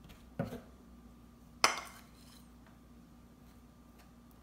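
Metal spoon working water putty into a hole in a door. A soft thump comes about half a second in, then a sharp click of the spoon against the door, the loudest sound, at about a second and a half, followed by a few faint scraping ticks.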